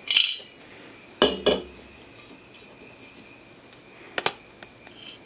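Sheet-metal jet-engine combustor can being picked up and turned over on a steel workbench: a scrape at the start, a knock and rattling clatter about a second in, then a few light clicks and one sharp click about four seconds in.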